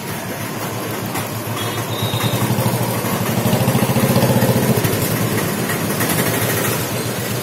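A small vehicle engine running close by, growing louder from about two seconds in and easing off after about five seconds as it passes.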